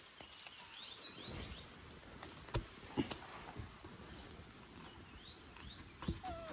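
Faint, short, high chirping calls from forest wildlife, in small groups about a second in and again later, with a few sharp snaps or clicks over a soft background hiss.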